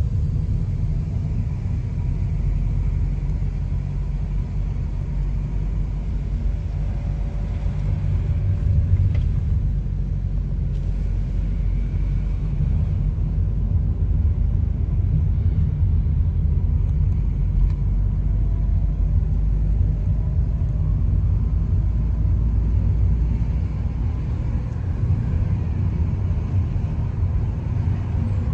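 A car driving at steady speed: a continuous low rumble of road and engine noise.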